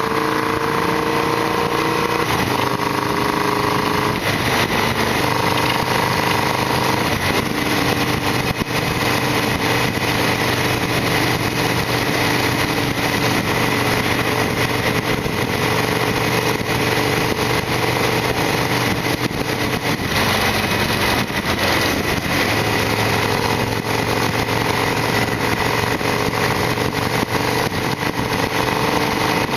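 Harley-Davidson Sportster XL1200R's V-twin engine running on the move, its pitch rising and stepping in the first few seconds as it pulls through the gears, then holding steady over a constant rush of noise.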